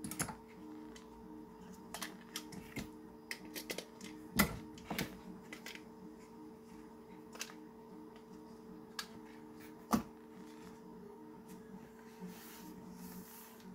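Clicks and knocks of plastic parts and small metal nuts being handled and fitted together on a table, two of them sharper knocks about four and ten seconds in, with a brief rubbing near the end, over a steady low hum.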